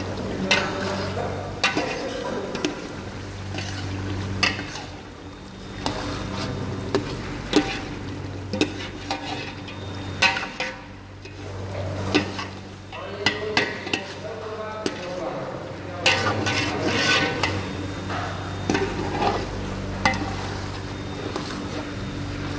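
A metal spoon stirring chicken curry in a metal pot, clinking and scraping against the sides every second or so, while the oily sauce sizzles. A steady low hum runs underneath.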